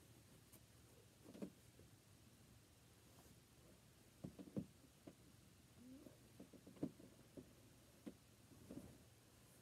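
Near silence: quiet room tone with a few faint, soft knocks and handling sounds scattered through it.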